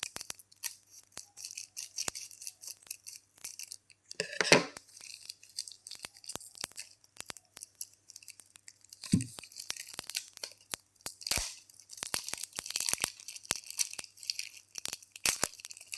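A chocolate bar's plastic wrapper being cut with scissors and torn open, crinkling and crackling in many small sharp bursts, with a louder tearing stretch about four and a half seconds in.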